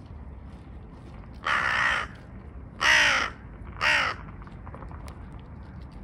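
Hooded crow cawing three times, starting about a second and a half in, each call a little over a second apart. The first and second calls are about half a second long and the third is shorter.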